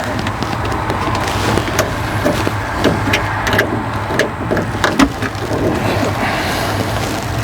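A steady low engine drone, with scattered clicks and knocks of hand work on metal parts.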